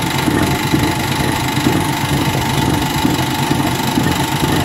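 Electric falafel mixer running steadily, its beater spinning through a metal pot of falafel paste: a continuous motor hum and whir.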